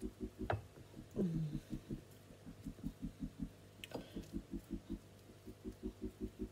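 Background music with a steady low pulsing beat, about five or six pulses a second, and a few short falling sweeps over it.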